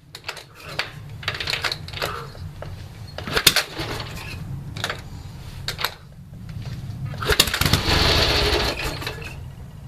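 1965 Harley-Davidson XLCH's 883 cc V-twin running raggedly on a squirt of fuel into its Bendix carburetor, with sharp pops. It swells loudest about eight seconds in, then fades: a hard-starting engine that catches only briefly.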